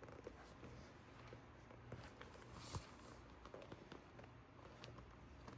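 Near silence: room tone with a low steady hum and a few faint ticks and rustles, the clearest a little under three seconds in.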